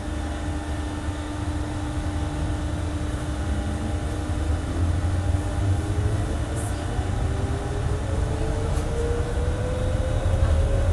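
Airport inter-terminal shuttle train running, its drive whine rising steadily in pitch as it gathers speed over a deep rumble, with a second steady tone underneath.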